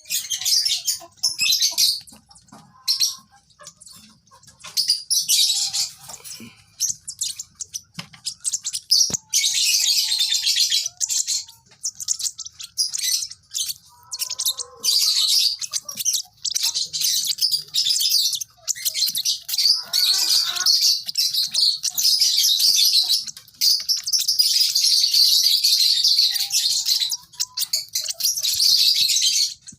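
Lovebirds chirping: shrill, rapid chatter in long runs broken by short pauses.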